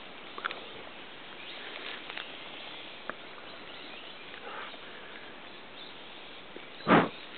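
Steady outdoor background hiss with a few faint short ticks, then one loud, sudden thump about seven seconds in.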